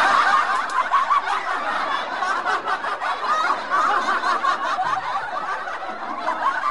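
Canned laughter: a laugh-track sound effect of many people laughing together, steady and dense throughout.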